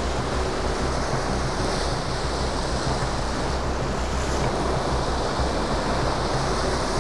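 Surf breaking against the jetty rocks, a steady rush of waves, with wind buffeting the microphone.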